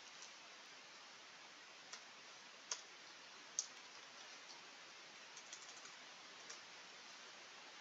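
Faint computer keyboard typing: scattered single keystrokes, then a quick run of several clicks about two-thirds of the way through, over a faint hiss.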